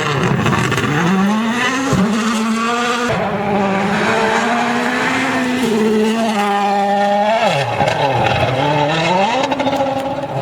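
Rally car engine at high revs, its pitch climbing, holding and dropping several times as it shifts or lifts, then falling deeply near the end before revving back up.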